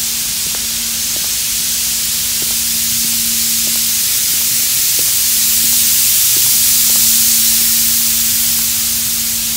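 Steady loud hiss of workshop background noise with a constant low hum under it and a few faint light knocks.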